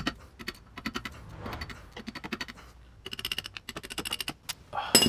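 A hand pick scraping and picking corroded metal remnants of a failed bushing sleeve out of a BMW E46 rear trailing arm's bushing bore: quick runs of small metallic clicks and scratches.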